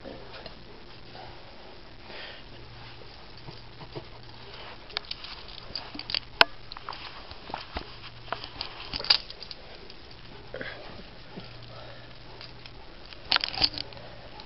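Dogs sniffing close by and moving about, with scattered sharp clicks and taps through the middle and a short cluster of them near the end.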